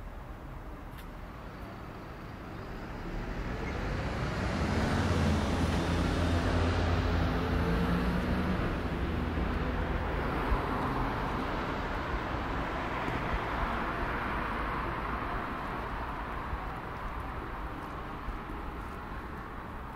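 A train passing. Its rumble swells over a few seconds, and a motor hum rises slightly in pitch. The sound then fades slowly over about ten seconds.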